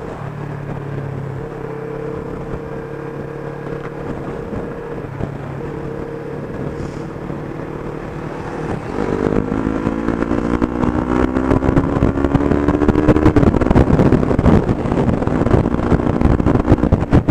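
Yamaha motorcycle engine heard from the rider's seat, running steadily at a cruise and then accelerating about halfway in, its note rising and shifting with a gear change. Wind rush and buffeting on the microphone grow louder as speed builds.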